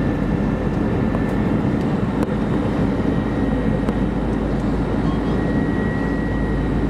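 Steady cabin noise inside an Airbus A320 airliner on short final approach: engine and airflow noise with a faint steady high whine.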